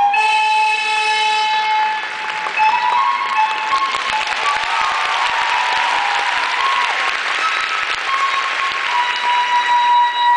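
Arena audience applauding over program music played on the public-address system; the clapping swells about two seconds in and dies away near the end while the music plays on.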